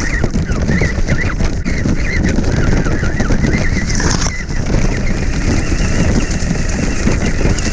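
Rumble and rattle of an RC car driving over rough forest ground, heard from a camera mounted on the car, with wind buffeting the microphone. Short wavering high chirps keep recurring over it, and there is a brief hissing scrape about four seconds in.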